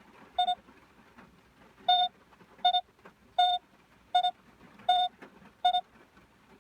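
Electronic beeper from a sound-effects app sounding seven short, identical beeps. One comes alone, and after a pause six more follow at an even pace of a bit over one a second.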